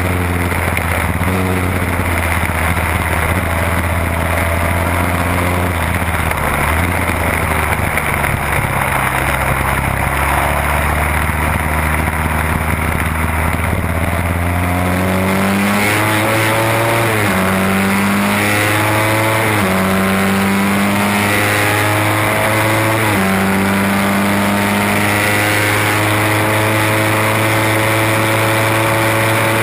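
1968 Seeley Norton Commando's 750 cc parallel-twin racing engine heard onboard at speed with wind rush. For the first half it runs at a steady pitch through the corner. From about halfway it accelerates hard, the pitch climbing and dropping sharply at four upshifts.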